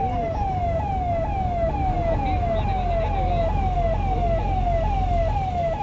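Emergency vehicle siren sounding a fast repeating cycle, each one jumping up and gliding down, about two a second, over a low steady rumble.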